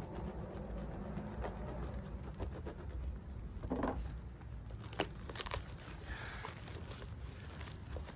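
A shipping package being cut open with a knife and its packaging torn and crinkled: scattered clicks, scrapes and rustles, with a longer scratching cut just before the middle, over a low steady rumble.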